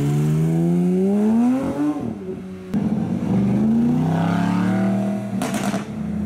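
Porsche 911 GT3's naturally aspirated flat-six accelerating away, its revs rising steadily. It is followed by an Audi R8 pulling away and revving up, with a short crackling burst from the exhaust near the end.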